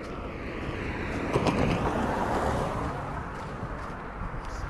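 A car passing by on the road: tyre and engine noise swells to a peak about two seconds in, then fades away.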